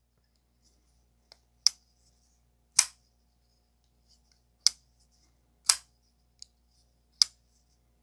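Small folding pocket knife with a liner lock, its stone-washed blade swung open and shut by hand: about five sharp, separate metal clicks as the blade snaps into place. The action is a little stiff, which the owner puts down to the stonewash.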